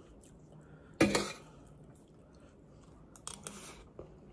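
A spoon knocking and scraping on a metal plate of rice, loudest about a second in and again more quietly near three seconds in, with chewing in between.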